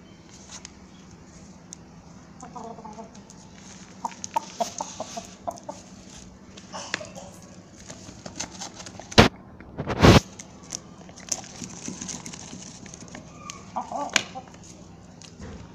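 Rooster making short clucks in scattered bursts, with runs of quick taps, and two sharp knocks about a second apart near the middle, the loudest sounds, as it pecks and pulls at a sandal on concrete.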